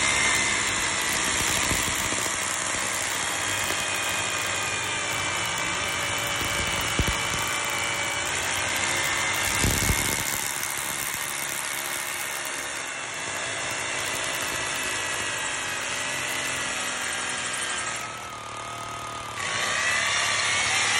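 Two corded rotary hammers, a Bosch and a Makita, hammer-drilling at once into a concrete block: a steady, loud mechanical din with several whining motor tones. About eighteen seconds in the sound drops for a moment, then picks back up.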